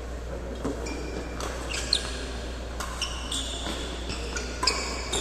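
Badminton rally on an indoor court: sharp racket hits on the shuttlecock, loudest about two seconds in and near the end, mixed with short high squeaks of shoes on the court floor.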